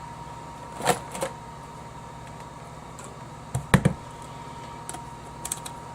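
A few scattered clicks and taps from hands working on a van's power door lock wiring and actuator, the loudest knock a little past halfway. A faint steady high tone runs underneath.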